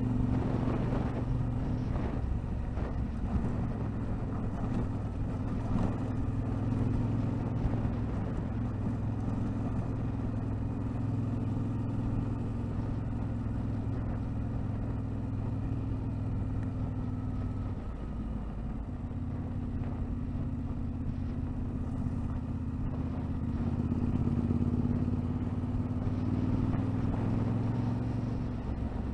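Motorcycle engine running steadily while riding along a rough road. The engine eases off briefly about two-thirds of the way through, then picks up again and gets louder shortly after.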